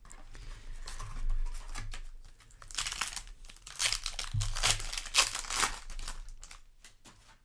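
Foil wrapper of a trading-card booster pack being torn open and crinkled, in irregular rustling bursts that are loudest around the middle.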